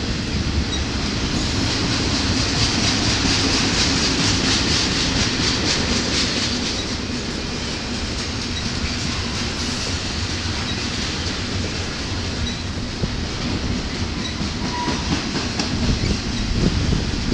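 Double-stack intermodal freight cars rolling past: a steady rumble and hiss of steel wheels on the rails, with a rhythmic clickety-clack that is loudest a couple of seconds in.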